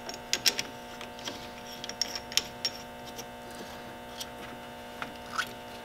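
Scattered light clicks and ticks of a brass locking wheel and die fitting being handled and screwed together by hand, over a steady electrical hum.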